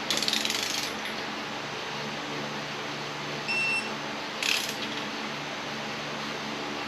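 A ratchet wrench clicking in a quick run for about a second, then a short electronic beep, and another brief run of clicks about a second after the beep. A steady low hum runs underneath.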